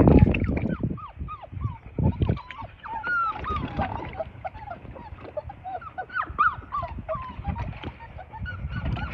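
Several five-week-old Labrador Retriever puppies whining and squeaking: many short, high cries, each rising then falling, overlapping one after another. A few dull thumps come near the start and again about two seconds in.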